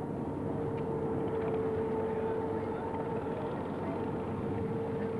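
A boat's engine running steadily, a constant drone with one held tone.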